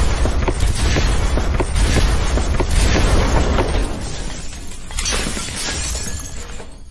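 Countdown intro sound effect: glass shattering over a heavy low rumble, with regular ticks about twice a second. It gets quieter from about four seconds in and fades out at the end.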